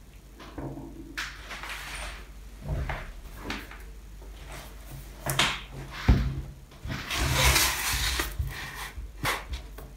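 Handling noises on a wooden tabletop: light knocks and clicks as a small screwdriver is set down, then a MacBook laptop laid down with a thump about six seconds in and slid across the wood with a scraping rub.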